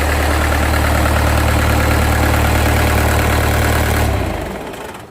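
Mitsubishi Fuso PS100 diesel engine, rebuilt to drive a shrimp-pond paddlewheel aerator, idling steadily on a test run. About four seconds in it shuts off and runs down to a stop.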